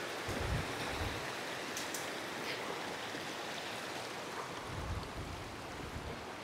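Mountain stream rushing over rocks, a steady hiss of running water, with a few brief low bumps on the microphone.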